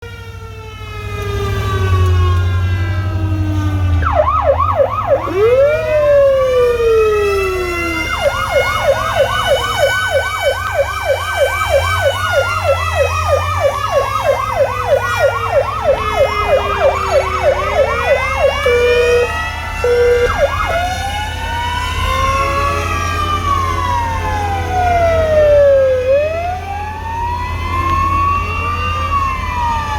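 Several emergency vehicle sirens sounding at once, their wails rising and falling over one another, with one switching to a fast yelp of about four sweeps a second for some ten seconds in the middle. A steady low engine hum runs underneath.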